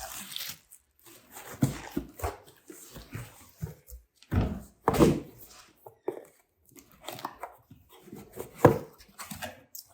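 A box being unpacked: a string of irregular knocks, thumps and rustles of cardboard and packing, in an echoey room.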